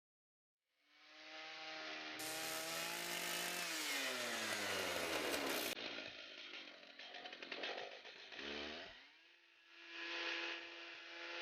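Stihl chainsaw power head driving a swing-blade sawmill, starting up about a second in. Its pitch falls a few seconds in and it runs unevenly, then it rises again and holds a steady note near the end.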